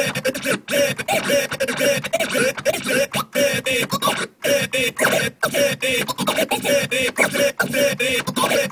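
Turntable scratching: a sampled voice on the record swooped back and forth in pitch and cut off and on rapidly with the mixer's fader, giving a fast, choppy stutter.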